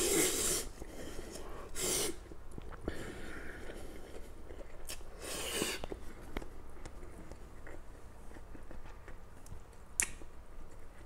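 Mi goreng fried noodles slurped loudly into the mouth three times, at the start, about two seconds in and about five seconds in, with quiet chewing between. There is a sharp click near the end.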